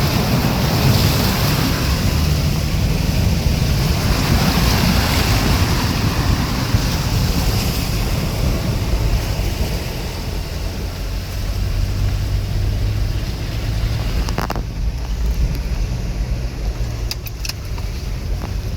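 Wind buffeting the microphone over the low hum of a running vehicle. About three-quarters of the way through a sharp click comes, the wind noise drops away and the engine hum goes on, with a few light clicks near the end.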